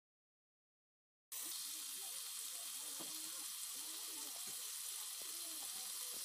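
Marinated chicken pieces sizzling as they fry in butter in a pan: a steady frying hiss that starts about a second in, after dead silence.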